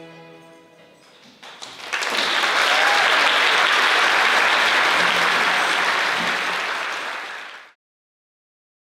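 The last note of the music dies away, then an audience breaks into applause about a second and a half in; the clapping holds steady and cuts off abruptly near the end.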